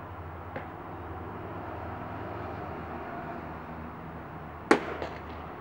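A pitched baseball hitting with one sharp, loud crack near the end, followed by a couple of fainter knocks, over a steady low background hum.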